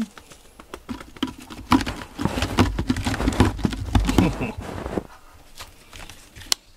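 Cat clawing a sisal-rope scratching post: a rapid run of rasping scratches for about three seconds, then a few scattered ones.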